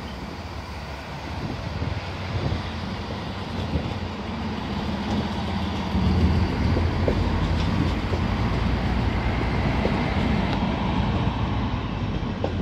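DB class 648 (Alstom Coradia LINT 41) diesel multiple unit running slowly past along the platform. Its diesel engines rumble and its wheels run on the rails, growing louder about six seconds in as it comes closest.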